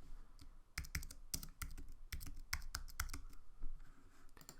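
Typing on a computer keyboard: an irregular run of quick keystrokes, thickest from about a second in.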